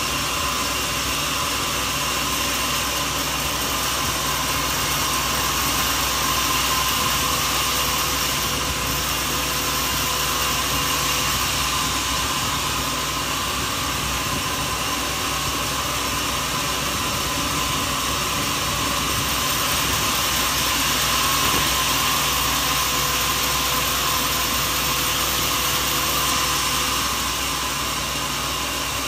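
Sawmill machinery running steadily: a continuous mechanical drone with a rushing, hissing noise over it. It swells slightly in loudness twice.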